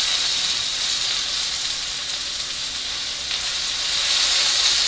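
Steak and shrimp sizzling on a hot hibachi cooking stone, a steady hiss that grows a little louder near the end.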